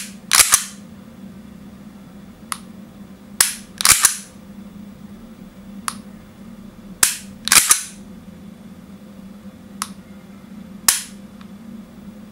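WE M&P9 gas blowback airsoft pistol worked by hand: its slide is racked and its trigger dry-fired, giving sharp metallic clicks, several in pairs about half a second apart with lighter single clicks between.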